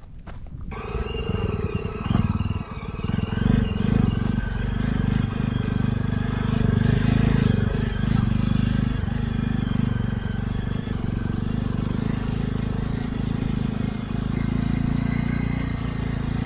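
Jawa 42 motorcycle's single-cylinder engine running steadily under way on a dirt track, heard from the bike itself, with wind and road noise. The sound comes in suddenly just under a second in.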